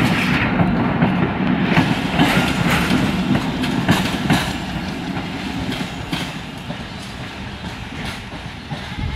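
Passenger coaches rolling past on the track, their wheels clattering over the rail joints with sharp clicks about every half second. The sound fades steadily as the tail of the train draws away.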